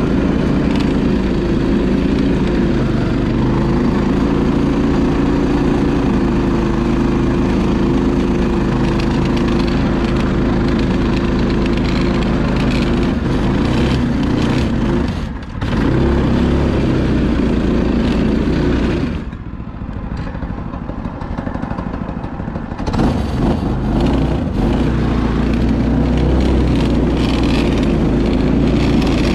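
Yerf Dog 3203 go-kart's engine running under throttle, heard on board. It dips briefly about halfway through, then runs lower for a few seconds before picking up again.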